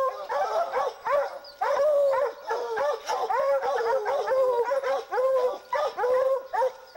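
A pack of Treeing Walker coonhounds barking treed, several dogs at once in rapid, overlapping chop barks with some drawn-out bawls mixed in: the tree bark of hounds holding a mountain lion up a tree.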